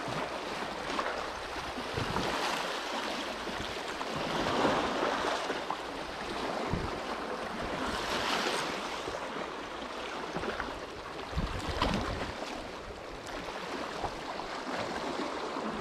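Sea waves washing ashore, swelling twice, with wind buffeting the microphone and a few soft knocks.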